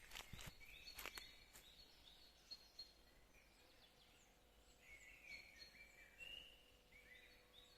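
Faint birdsong: small birds giving repeated short, high chirps throughout. A few sharp clicks in the first second and a half.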